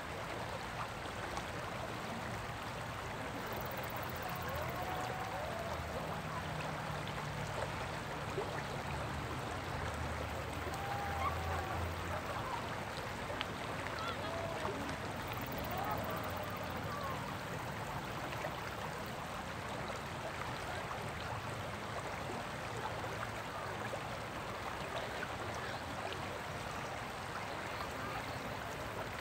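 Shallow river rapids: water running steadily over rocks. A few short calls sound over it in the first half.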